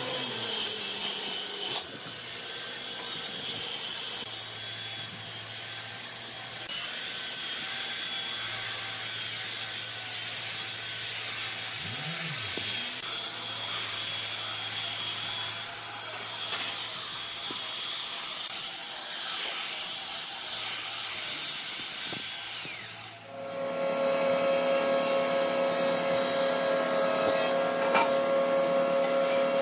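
Handheld electric belt sander running over a hardwood door frame, a steady abrasive hiss with a faint motor whine. About 23 seconds in it stops and a louder, steady whine of an electric paint spray gun takes over.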